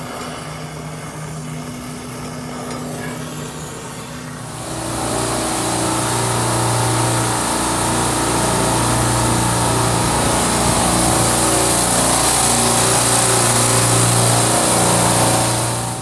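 Refrigeration vacuum pump running steadily as it pulls a vacuum on a refrigeration circuit: a loud motor hum with a hiss over it. It starts about four and a half seconds in, after a quieter steady hum, and stops just before the end.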